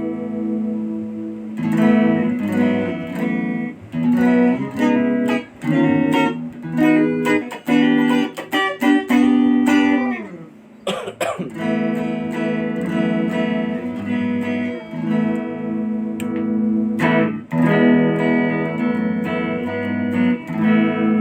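Ibanez Gio electric guitar being played: picked notes and chords ringing out, with a slide down in pitch about ten seconds in and sharp strummed chords a little later.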